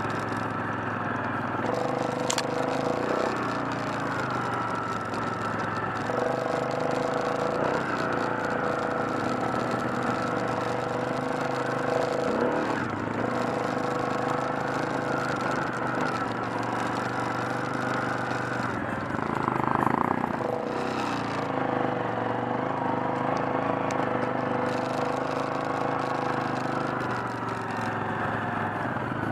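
ATV engine running under way on a muddy trail, its pitch rising and falling every few seconds as the throttle is opened and eased off.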